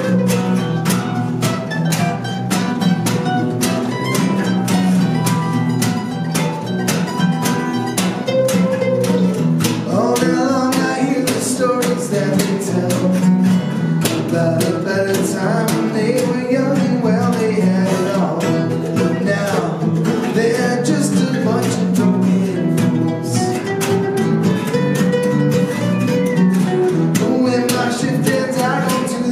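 An acoustic guitar and an acoustic bass guitar playing together live: fast, steady strumming on the steel-string guitar over a plucked bass line.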